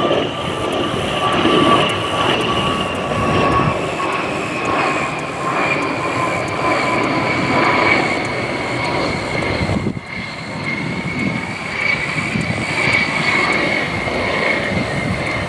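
A-10 Thunderbolt II's TF34 turbofan engines whining as the jet flies low past, the whine sliding slowly down in pitch. There is a brief break about ten seconds in, after which the whine holds steady.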